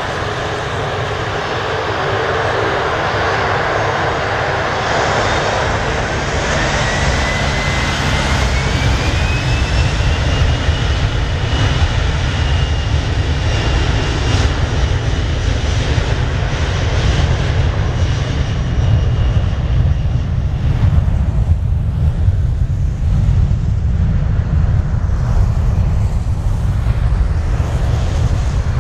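Boeing 737-400's CFM56-3 turbofan engines at takeoff thrust on the takeoff roll: a fan whine rises in pitch about six seconds in and then holds steady as the jet passes, and in the second half a deep, loud rumble takes over as it accelerates away.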